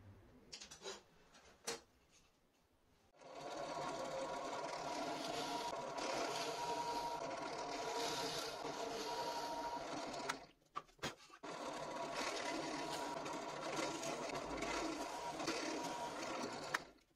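Benchtop drill press motor running with a steady whine while its bit bores holes in plywood, in two long spells with a short stop in between that holds a few knocks. Before the first spell there are a few light clicks.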